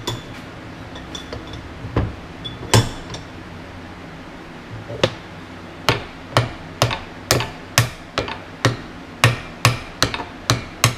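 Small hammer tapping the cast-iron end housing of a tractor DC generator held in a vise, knocking it loose from the case. A few spaced taps come first, then a steady run of about two taps a second from about six seconds in.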